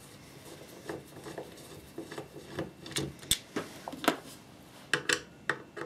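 Scattered light clicks and taps of a screwdriver and small metal parts (circlip, shims) as the gear end of an old Makita belt sander is taken apart, with small parts set down on wood; one sharper knock a little past three seconds in.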